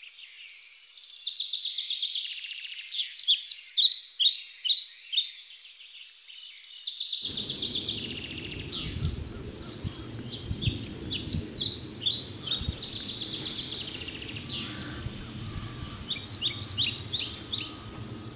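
Songbirds singing: quick series of short, high, downward-sweeping chirps and trills, several in rapid runs. About seven seconds in, a steady low background rumble of outdoor noise comes in abruptly under the birdsong.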